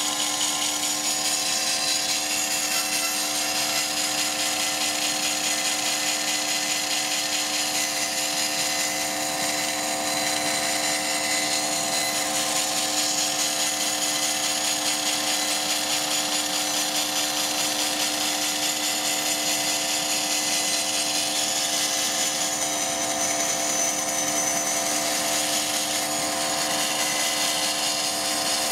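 Old band saw running, its blade cutting a curve through a sheet of plywood: a steady machine hum with several even tones under the continuous hiss of the cut.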